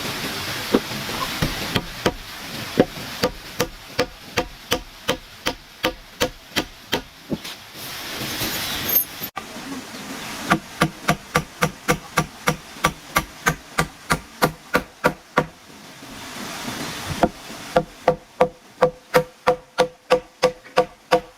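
Hammer driving nails into wood in three runs of even, rapid blows, about two to four a second, with short pauses between runs. The blows ring slightly in the last run, where they come fastest.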